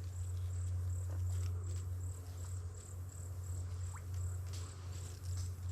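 Insect chirping in an even, high-pitched pulse about two to three times a second, over a steady low hum.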